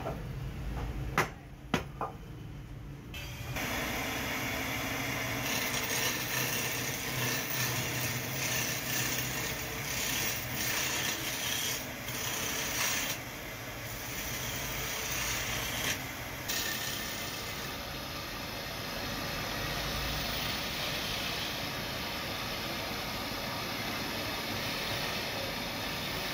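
Two sharp knocks about a second in, then from about three seconds in a wood lathe spinning a wooden blank while a hand-held chisel cuts into it: a steady rough rasping of the tool shaving the turning wood.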